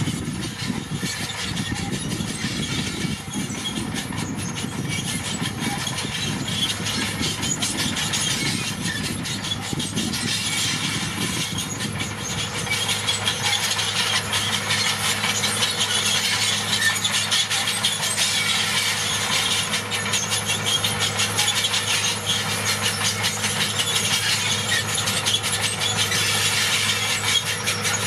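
Komatsu D41PX crawler bulldozer working: its diesel engine running under load with a continuous high metallic squeal and clatter from the steel tracks. About halfway through the engine note settles into a steadier drone and the sound gets a little louder.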